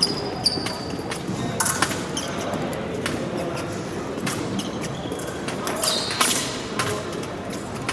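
Épée blades clicking and clashing, some strikes ringing briefly, mixed with fencers' footwork knocking on the piste.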